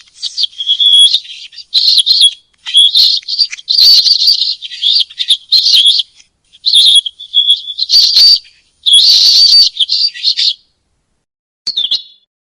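High-pitched, bird-like chirping and twittering in rapid bursts, given as a penguin's call. It breaks off briefly near the end, then gives one last short chirp.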